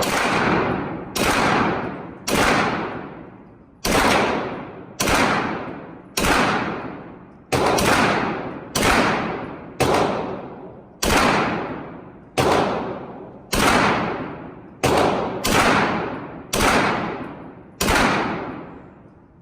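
Gunshots fired at a steady pace, about one every 1.2 seconds, roughly sixteen in all, each followed by a long echoing decay.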